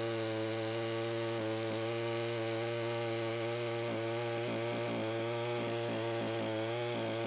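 NEO-TEC NS892 92cc two-stroke chainsaw engine running at a steady speed, its pitch holding nearly constant.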